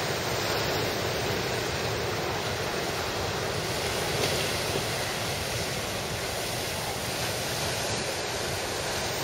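Heavy surf breaking and washing up a sandy beach: a steady, unbroken rushing of waves.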